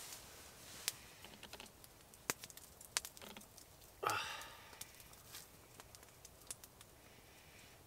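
Spruce-wood campfire crackling faintly, with a few sharp pops, irregular and sparse. About four seconds in comes a short, louder breathy noise.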